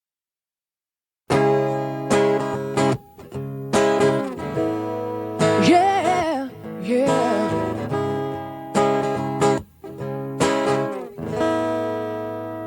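Acoustic guitar starts about a second in and plays the song's intro, striking chords that ring on. In the middle there is a brief wordless vocal with a wavering pitch.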